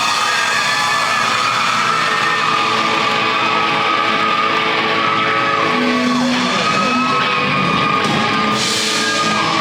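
A live rock band playing loudly, with yells from the audience.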